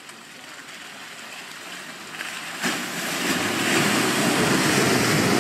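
Land Rover Defender 90 ploughing through a muddy rut, its tyres and front bumper churning and splashing mud and water. The splashing swells suddenly about two and a half seconds in and stays loud after that.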